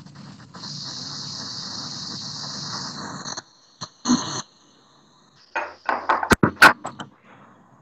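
A steady hiss for about three seconds, then a short burst and a quick run of loud knocks and rubs as the phone filming the kitchen is picked up and moved.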